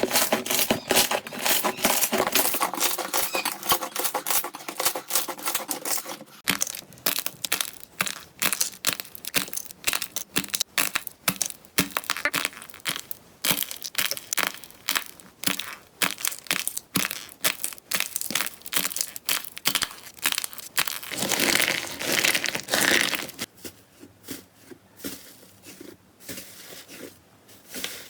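Slime being squeezed and pressed by hand, giving dense, rapid crackling and crunching. The texture changes abruptly about six seconds in, and it swells louder about three-quarters of the way through.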